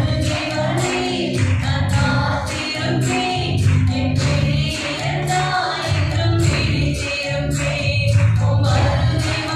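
Tamil Christian worship song: voices singing together like a choir over instrumental backing with a steady beat.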